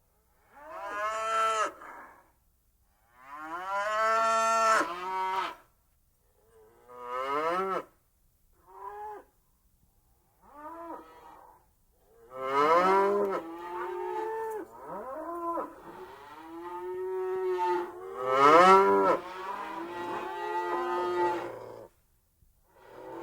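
Cattle mooing: a series of separate moos, some short and some drawn out, with gaps between them, then from about halfway near-continuous, overlapping moos.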